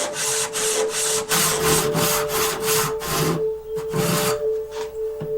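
Hand saw rip-cutting a flame maple board lengthwise: rhythmic rasping strokes, about three a second, that grow weaker after about three seconds. Soft sustained music tones run underneath.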